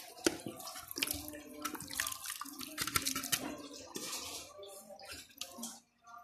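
Thick chicken curry being poured and scraped out of a metal pot onto rice in an aluminium pot: wet gravy plopping and slopping, with many sharp clicks and scrapes of metal on metal.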